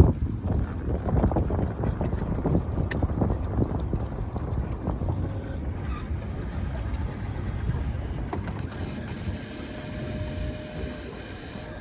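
Wind buffeting the microphone: a gusty low rumble that eases off in the last few seconds.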